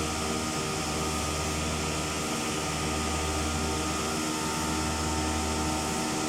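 Cladding CNC router machine running steadily: a constant whine of several fixed tones over a hiss, with a low hum underneath.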